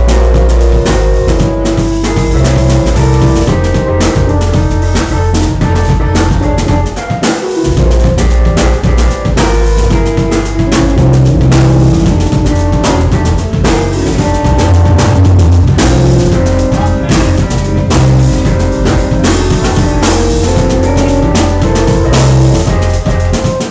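Loud music with a drum kit keeping a steady beat under bass and melody notes; the bass drops out briefly about seven seconds in.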